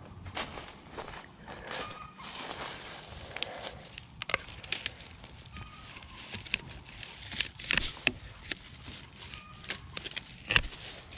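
Long-handled loppers snipping through small branches: a series of sharp snaps, the loudest near the end, with rustling of dry leaves and brush between the cuts.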